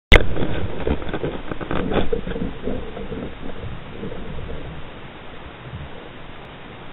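Underwater sound picked up by the camera: a cluster of clicks and knocks over the first two seconds or so, fading into a steady, even hiss of the water.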